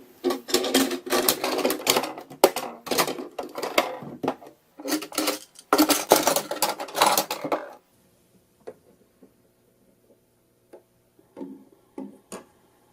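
Rapid, busy clattering and clicking of hard toy pieces, stopping about eight seconds in, then a few scattered clicks.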